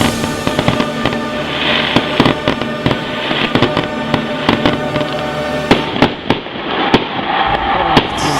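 Fireworks display: a quick, continuous run of sharp bangs and crackling bursts.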